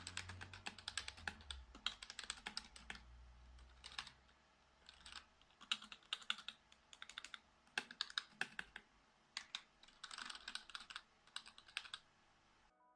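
Typing on a Genius GX Scorpion K10 keyboard's mechanical-like membrane switches, in quick bursts of key clicks with brief pauses. It stops shortly before the end.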